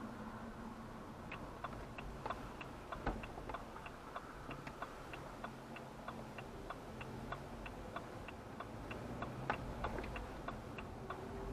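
Car turn-signal indicator ticking steadily, about three clicks a second, during a turn. It starts about a second in and stops near the end, over a low steady hum inside the car.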